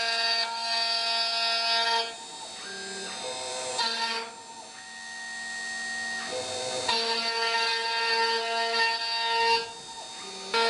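CNC router spindle cutting a groove into a wooden post turned on a rotary axis: a steady whine made of several tones. It drops quieter for a few seconds around the middle and again briefly near the end.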